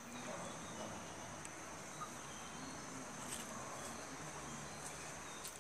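Faint outdoor ambience: insects keep up a steady high-pitched drone, with a few faint ticks.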